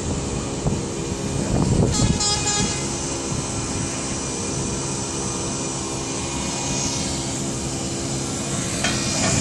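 Steady mechanical hum of a running hydraulic machine, with a short clicking rattle about two seconds in.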